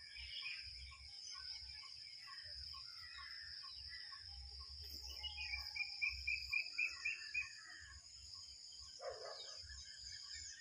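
Outdoor ambience: a steady high insect drone with a short note repeating about twice a second beneath it, and birds calling. About halfway through, a bird gives a run of about eight quick chirps, the loudest sound here, and another call follows near the end.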